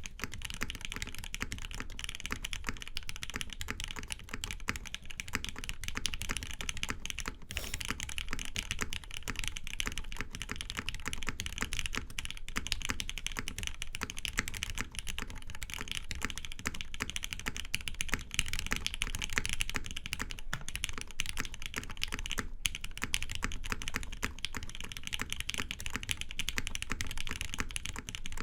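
Continuous fast typing on a TGR 910 RE custom mechanical keyboard with a polycarbonate case and plate, lubed Cherry MX Black Hyperglide linear switches, GMK keycaps and TX stabilizers. The keystrokes come in a dense, unbroken stream of clicks.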